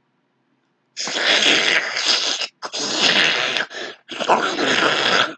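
A person making loud, harsh vocal noises into the microphone, imitating a creature gobbling food: three long bursts starting about a second in, with short breaks between them.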